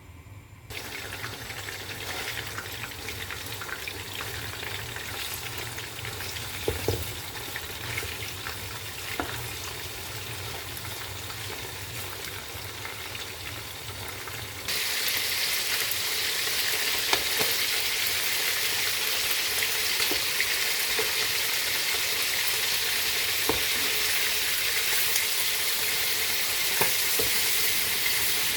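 Marinated chicken pieces sizzling as they fry in hot oil in a pan, with a few faint clicks. About halfway through, the sizzle turns suddenly louder and hissier.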